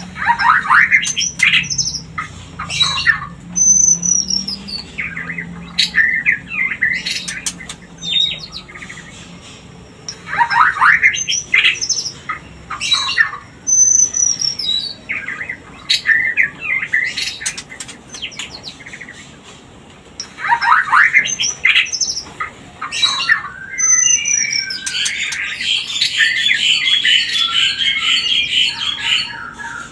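White-rumped shama (murai batu) breeding-season calls, the kind keepers play to bring shamas into mating condition. Three similar phrases come about ten seconds apart, each a run of quick rising notes, sharp clicks and a high downslurred whistle. A long harsh chatter follows near the end.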